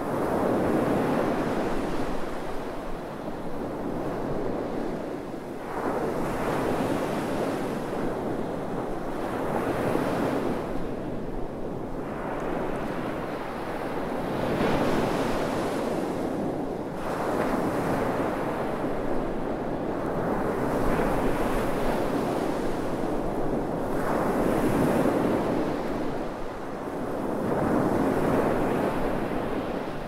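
Sea waves breaking on a sandy beach and washing up the shore, the surf swelling and falling away every few seconds.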